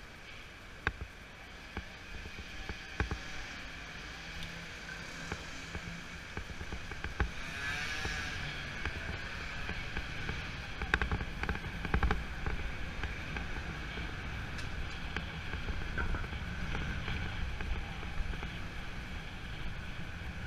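Street noise heard from a moving bicycle: a steady low rumble of traffic and riding, with a few sharp clicks and knocks scattered through it. It grows louder toward the middle and stays up.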